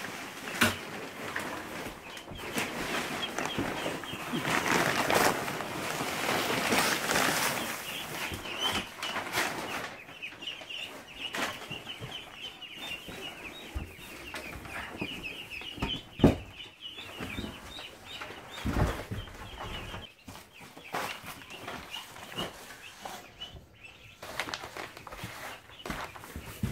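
A crowd of Khaki Campbell ducklings peeping continuously, with rustling of bedding and plastic being handled and a couple of sharp knocks.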